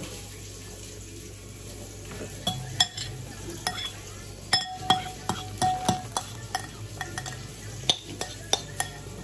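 Metal spoon clinking against a ceramic bowl as food is scooped from it. A string of sharp clinks starts about two seconds in, some of them ringing briefly, busiest around the middle.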